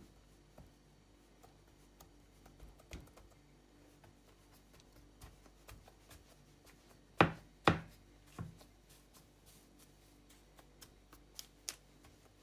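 Scattered soft taps and clicks of bread dough being pressed into a dimpled pattern by hand on baking paper, with two louder knocks a little past halfway and a few sharp ticks near the end.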